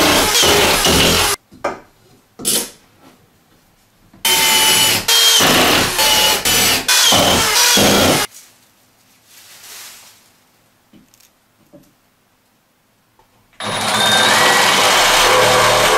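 Corded drill running in two bursts of a few seconds each, its motor whine stepping in pitch as the trigger is worked, while fastening cement board to the studs. Near the end a cordless reciprocating saw starts up and runs steadily, cutting at the top of the board.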